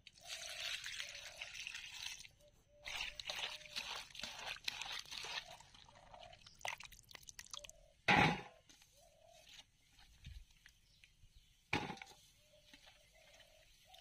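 Water pouring and splashing over cauliflower florets in a steel bowl, in two runs over the first five seconds or so. Then quieter splashes and knocks as the wet florets are handled, with a loud knock about eight seconds in and another near twelve seconds.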